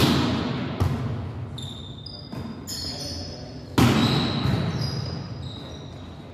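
Volleyball being struck during an indoor rally: three sharp hits, one at the start, one just under a second in and the loudest about four seconds in, each echoing through the gymnasium. Short high squeaks come from shoes on the court floor between the hits.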